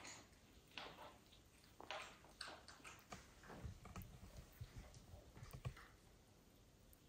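A mother cat licking and grooming her kittens: faint, short licking strokes at irregular intervals, with a run of soft low bumps from movement about halfway through.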